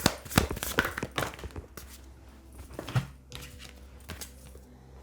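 Tarot cards being handled and shuffled: a run of quick flicks and light taps in the first three seconds, then only faint steady tones.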